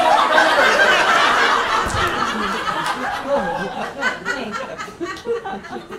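Live audience laughing, loudest in the first two or three seconds and then tapering off, with scattered voices and a dull thump about two seconds in.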